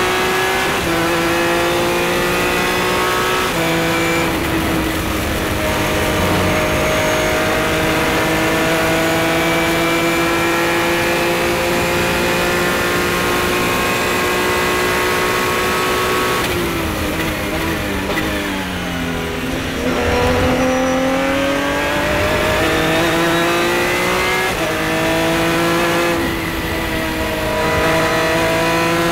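Revolution A-1 500SC prototype race car's engine heard from the cockpit at full throttle, its pitch climbing through the gears with quick drops at each upshift, twice in the first few seconds and then in one long pull. A little past halfway it brakes hard and the pitch falls through a quick run of downshifts, then it accelerates again and shifts up twice more near the end.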